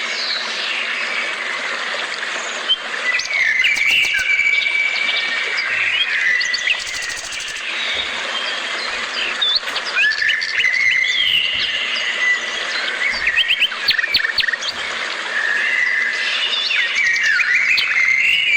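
Several birds singing and chirping together: a dense chorus of held whistled notes and short, quick rising chirps overlapping throughout.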